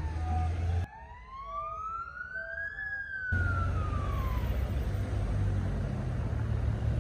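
Emergency vehicle siren wailing: one slow rise in pitch, peaking about three seconds in, then a fall that fades out. Low city traffic rumble underneath.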